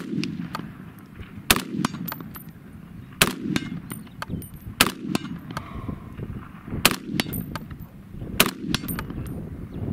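Century Arms C308 .308 battle rifle firing a steady string of single shots, one about every one and a half to two seconds, six in all. Fainter cracks and sharp ticks sound between the shots.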